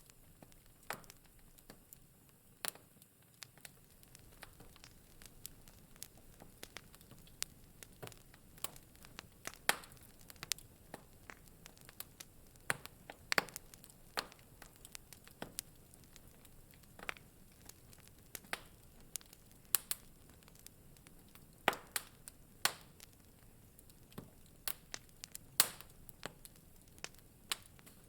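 Wood fire in a fireplace crackling: irregular sharp pops and snaps, some much louder than others, over a faint steady hiss.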